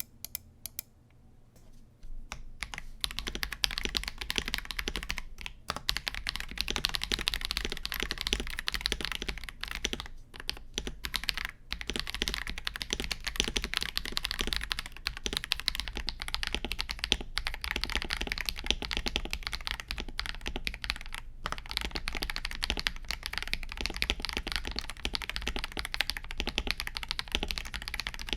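Fast, continuous typing on a KBD67 Lite R3 mechanical keyboard fitted with Akko CS Vintage White linear switches. It starts about two seconds in and breaks off briefly a few times.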